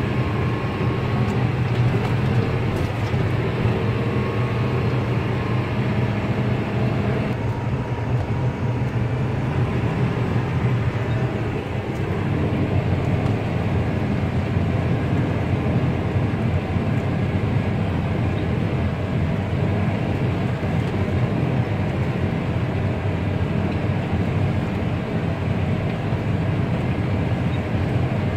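New Holland T8.320 tractor's six-cylinder diesel engine running steadily under load, heard from inside the cab while pulling a disc harrow. Its tone shifts slightly about seven seconds in.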